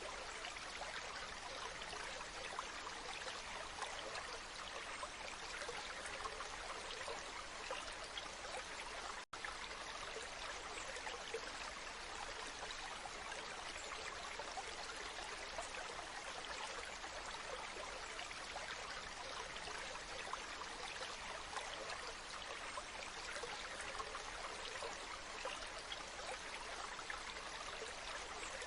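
Waterfall: water falling and splashing steadily, an even rush with fine spattering. A split-second dropout about nine seconds in.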